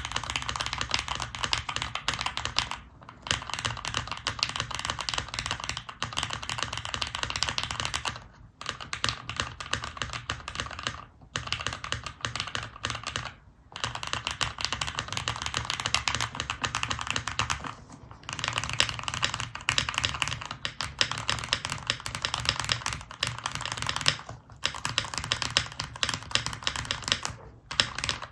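Continuous fast typing on a Luminkey65 mechanical keyboard with lubed and filmed Cherry MX Nixie switches, FR4 plate and GMK Art keycaps: a dense run of keystroke clacks, broken by several short pauses.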